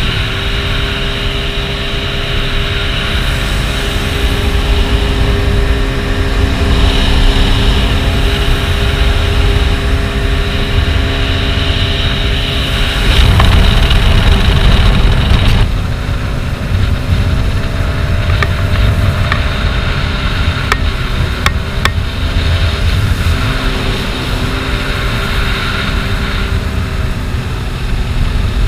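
Sea-Doo Spark jet ski running at speed over open water: its three-cylinder Rotax engine holds a steady tone over the rush of water and wind buffeting the microphone. The engine note drops about halfway through, and a few sharp ticks follow soon after.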